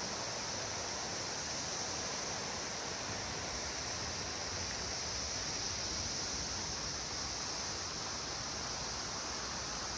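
Patapsco River running fast over rocky shallows: a steady rushing hiss that does not change.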